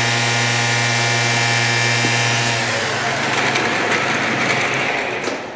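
Machine-shop machinery running with a steady hum: a strong low drone with many overtones. About two and a half seconds in, the hum gives way to a hissier, rushing noise that fades near the end.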